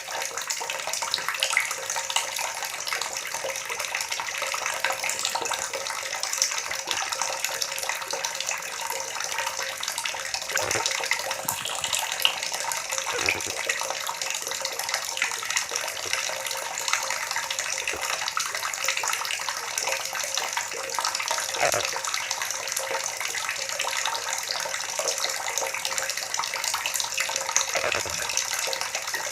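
Water gurgling and splashing steadily, with a few deeper bubbling gulps now and then.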